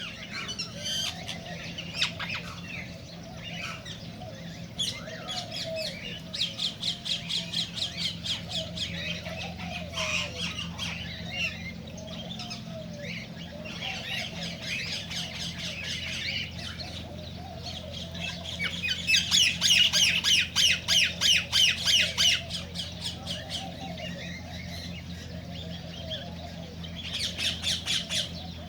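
Cockatiels squawking and chirping in rapid runs of repeated notes, in several bouts, the loudest about two-thirds of the way through.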